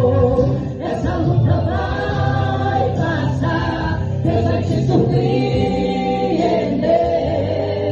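Gospel song sung by a vocal group in close harmony, with sustained, blended voices over a steady low bass part.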